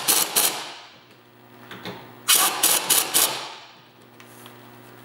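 Pneumatic impact wrench on an air hose hammering in two short bursts, the second about two seconds after the first, as it runs down and tightens the nerf bar bracket bolts.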